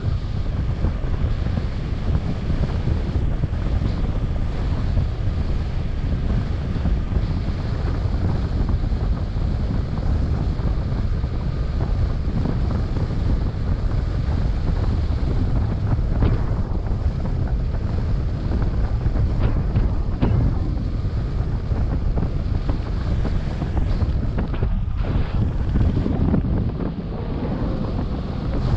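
Wind rushing over the microphone of a paraglider pilot's body-worn camera in flight: a steady, deep buffeting rush of airflow, easing slightly near the end.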